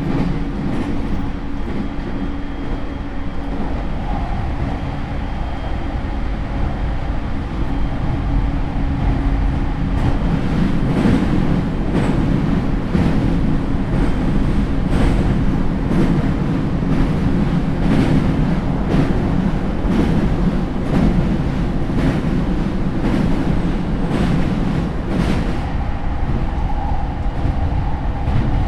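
JR East E231 series electric train heard from inside a motor car with a Hitachi IGBT inverter, running at speed with a steady low rumble and faint motor tones. Through the middle stretch the wheels click over rail joints about once a second.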